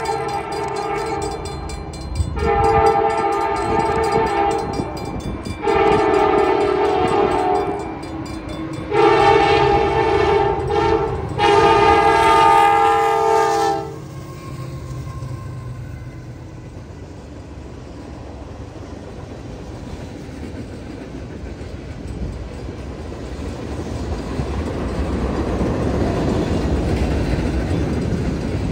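Diesel freight locomotive's multi-chime air horn blowing a run of long blasts with one shorter one, the grade-crossing signal, stopping about halfway through. Then the rumble of the locomotives and tank cars rolling past, growing louder near the end.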